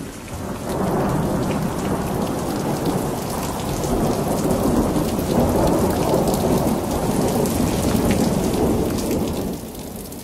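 Rain falling with a long rumble of thunder, which swells about half a second in and dies away near the end.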